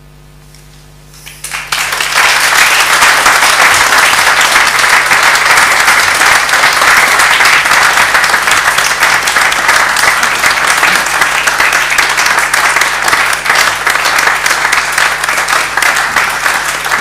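Audience applauding, starting about a second and a half in and holding steady as many hands clap together.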